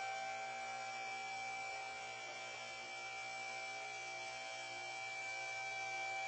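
A steady hum with thin, high whining tones, unchanging in pitch or level throughout.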